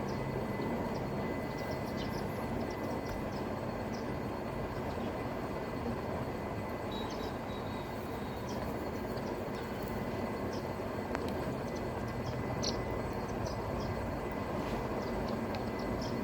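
House sparrows chirping in short, scattered notes over a steady low rumble.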